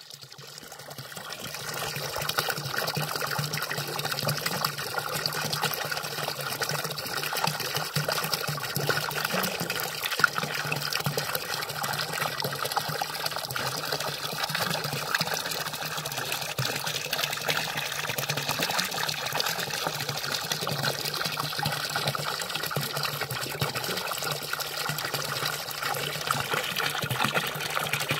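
Water from a village fountain's spout pouring and splashing steadily. It fades in over the first two seconds, then holds level.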